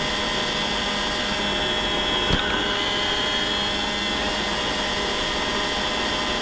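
iRobot Roomba robot vacuum running, heard close up from on top of the machine: a steady whir of its motor and brushes, with one sharp knock a little over two seconds in.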